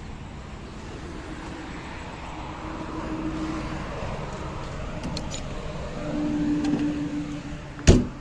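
Road traffic going by, with a vehicle's engine hum swelling and fading twice over a steady rumble. A single sharp bang, the loudest sound, comes near the end.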